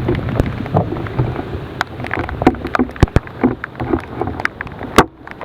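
Floodwater splashing and sloshing in irregular bursts as it is moved through, with many sharp clicks and knocks, over a low rumble of wind on the microphone.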